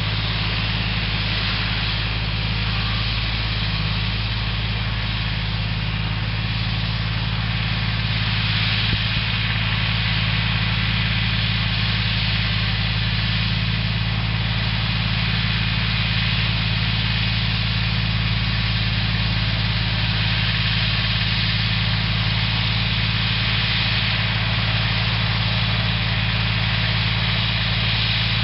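Yanmar YM169 compact tractor's small diesel engine running steadily at a constant speed, a little louder from about eight seconds in.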